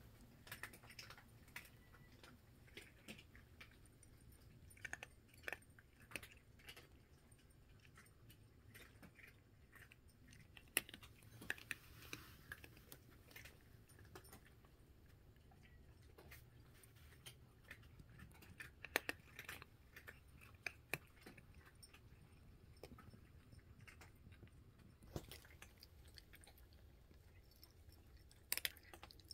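Cats chewing dry kibble from a bowl: faint, irregular crunches and clicks, with a few louder crunches scattered through.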